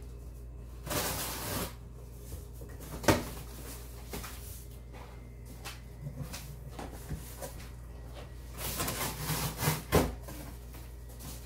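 Large corrugated cardboard box being opened by hand: flaps scraping, rubbing and flexing, with a sharp knock about three seconds in and a flurry of scraping ending in a louder knock near the end.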